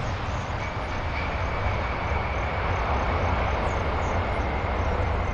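Boeing 747's four jet engines running as the airliner rolls out after touchdown: a steady rumble with a faint high whine from about half a second in.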